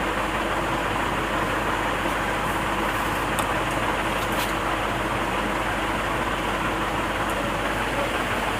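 Steady, unchanging background noise with a low hum underneath and no distinct events.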